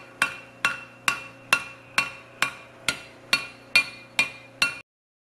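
Hammer striking red-hot steel, forging the cone-shaped pipe socket for a bark spud on the teeth of a large steel gear used as an anvil. It is an even beat of about two ringing blows a second, eleven in all, and it stops suddenly near the end.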